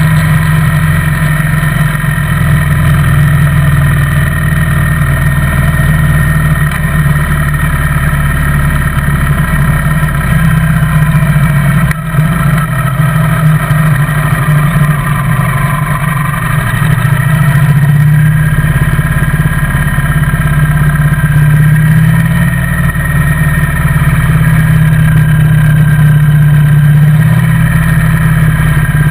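Motorcycle engine running steadily while riding along at road speed, heard from the bike itself, with a short dip about twelve seconds in.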